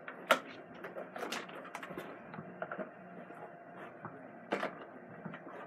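Irregular clicks, taps and rustles of an HDMI cable being handled and plugged into a mini projector, the sharpest just after the start and again about four and a half seconds in, over a faint steady hum.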